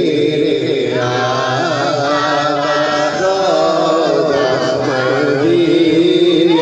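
A man singing a naat, an unaccompanied Urdu devotional poem, into a microphone, holding long wavering notes.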